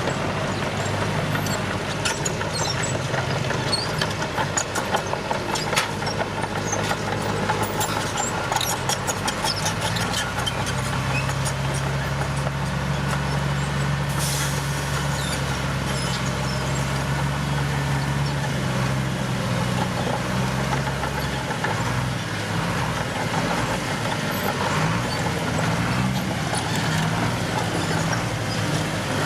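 Heavy diesel engines of road-construction machinery running steadily, the low engine hum strengthening for a while mid-way and then changing pitch. Scattered clicks and knocks in the first ten seconds, and a short hiss about fourteen seconds in.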